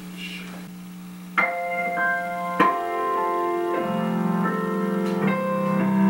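A piano starts playing: after about a second and a half of quiet, a chord is struck, another follows about a second later, and slow, sustained chords carry on from there.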